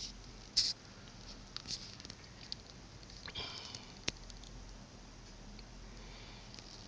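A couple of short nasal sniffs close to the microphone, about half a second in and again near the middle, with a sharp small click just after and a few faint ticks over quiet room tone.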